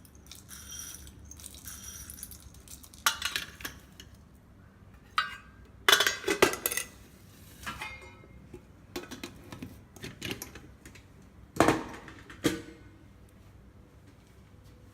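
Spoon and metal kitchenware clinking and knocking as black pepper is added to the ginger, garlic and cumin for a fresh masala. Irregular clatters, loudest about six and twelve seconds in, with no grinder running.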